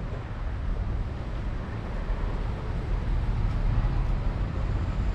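Steady low outdoor rumble with no distinct event, the kind of background that wind on the microphone and road traffic make on an open promenade.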